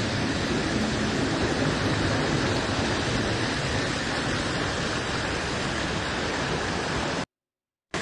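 Waterfall cascading over rocks into a pool: a steady rushing of water that cuts out abruptly for about half a second near the end.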